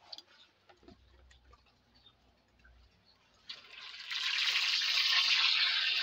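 Parrotfish pieces frying in hot oil in a wok: after a few faint clicks, a sharp click about three and a half seconds in starts a sizzle that builds within half a second to a loud, steady, hissing fry.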